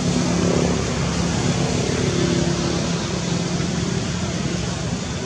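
Steady background hiss with a low, wavering hum under it.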